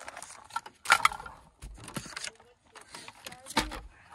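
Tools and packaging being handled on a truck seat: irregular clicks, rattles and rustling, with a sharp knock about a second in and another near the end.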